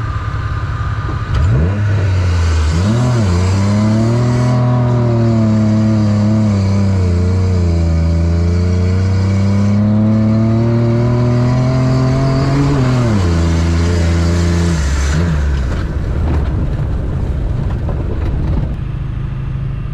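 Jeep engine pulling hard under full throttle on a drag run. Its pitch climbs, dips once about halfway through like a gear change, then climbs again before the throttle is lifted and the revs fall away about thirteen seconds in. A rushing noise of wind and tyres runs under it.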